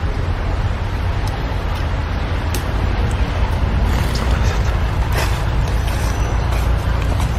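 Steady outdoor background noise: a heavy low rumble under an even hiss, with a few faint clicks.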